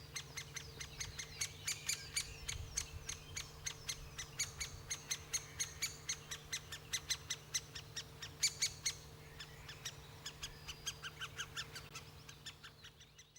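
Great spotted woodpecker calling: a long run of short, sharp high calls repeated about four times a second, fading out at the end.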